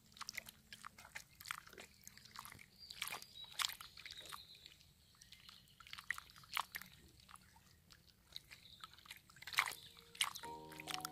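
Irregular soft clicks and small splashes of shallow water over pebbles at a shoreline, with two brief high chirps about three seconds in. Music begins near the end.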